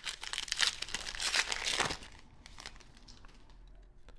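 Foil wrapper of a 2021 Panini Classics Football card pack crinkling and tearing as it is ripped open, loud for about two seconds, then dying down to faint rustling.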